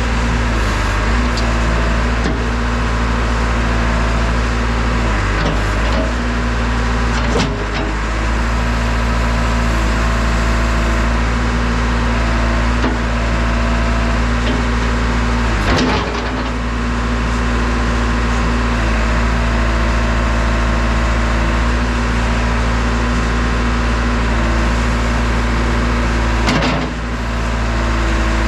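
JCB backhoe loader's diesel engine running steadily, with a few brief knocks, about 7, 16 and 27 seconds in.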